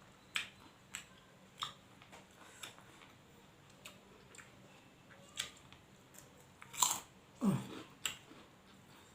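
A person chewing food close to the microphone during a mukbang: sharp, crisp mouth clicks and crunches come about once a second. A louder cluster of them comes about seven seconds in.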